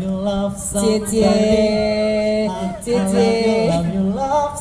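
Vocal beatboxing into a handheld microphone, amplified over a stage PA: a held low humming bass note under a sung melody, with hissing hi-hat-like sounds on top.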